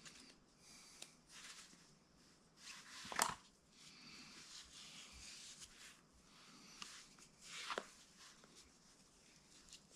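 Faint scraping and rustling of a lace being worked through a sandal's sole by hand. There is a sharp click about three seconds in and another near the eight-second mark.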